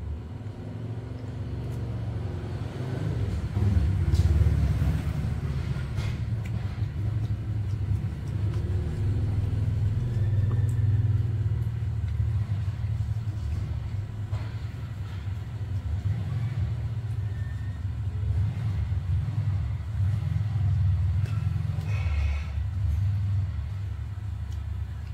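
A low rumble that rises and falls, loudest about four seconds in, with a few faint clicks over it.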